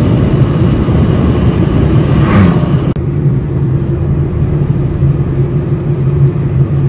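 Car cabin noise while driving: a steady low engine and tyre drone. A little over two seconds in, an oncoming vehicle passes with a brief rush.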